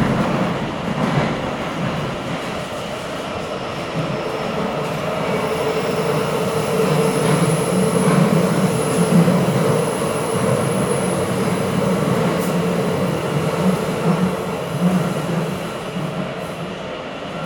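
Bucharest metro train on line M1 running between stations, heard from inside the passenger car: a steady rumble of wheels and running gear that swells toward the middle and eases off near the end. A faint high whine comes in about halfway through.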